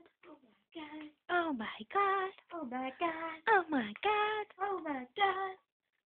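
A high-pitched voice singing a sing-song tune in a quick run of short, gliding notes, breaking off shortly before the end.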